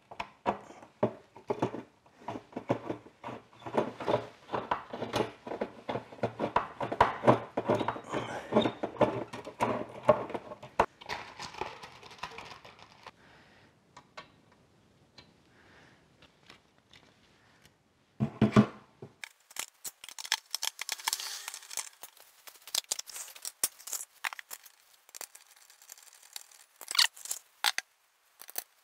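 A hand screwdriver and small parts clicking and rattling as electronics components are screwed onto a drilled mounting board. A single knock comes a little past halfway, followed by a stretch of high, crisp crinkling.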